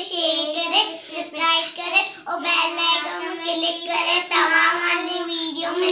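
Two young girls singing together in high voices, a continuous sing-song line with held notes.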